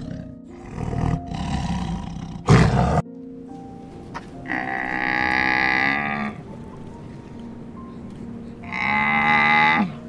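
Tiger roaring and growling for the first three seconds, ending in a loud, harsh roar. Then two drawn-out camel calls, the first about a second and a half long, the second about a second near the end.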